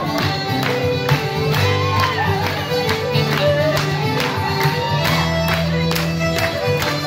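Live Scottish folk-rock band playing a jig set: a drum kit keeps a steady beat under held bass notes, with strummed acoustic guitar and a lead melody on top.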